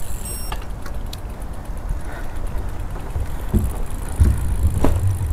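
Wind buffeting the microphone of a bicycle on the move, a loud low rumble that swells in the second half, with a few light clicks and rattles in the first second.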